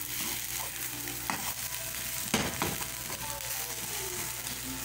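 Egg omelette sizzling steadily in a frying pan, with a couple of knocks of a metal skimmer against the pan, the loudest about two and a half seconds in.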